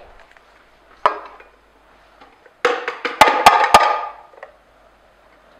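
Plastic juicer pulp containers handled and emptied of carrot pulp: a single knock about a second in, then a short clattering rattle with three sharp taps as a container is knocked out.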